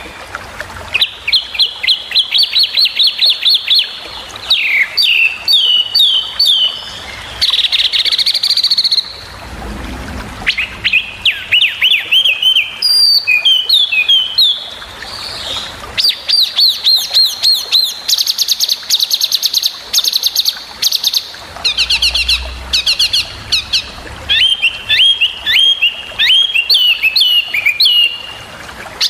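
Brown-chested jungle flycatcher (SRDC) singing a long run of sharp, rapid high chips and fast trilled phrases. These are the hard 'shot' (tembakan) notes used as master song for training cage birds. The song breaks off briefly twice.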